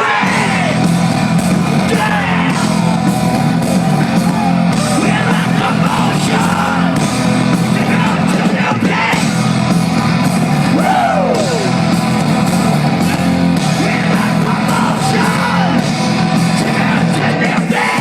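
Live heavy rock band playing loud and steady, with distorted guitars and yelling voices over the music.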